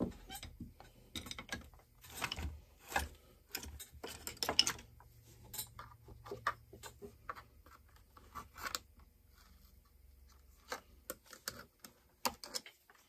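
Irregular clicks, taps and light scraping of hands working on a Farmertec MS660 chainsaw, a clone of the Stihl MS660, during its teardown, busiest in the first half.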